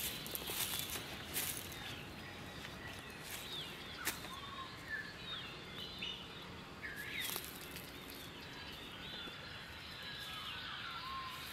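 Birds calling in woodland: many short chirps and whistled notes scattered throughout, over a faint steady background hiss, with a few sharp clicks, the loudest about four seconds in.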